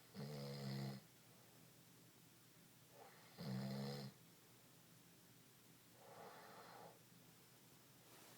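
Snoring: two buzzing snores about three seconds apart, then a softer, breathier one about six seconds in.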